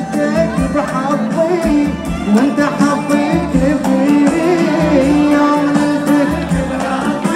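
Live Emirati Khaleeji pop song through a concert sound system: a voice sings a melodic line over instrumental backing with a steady beat.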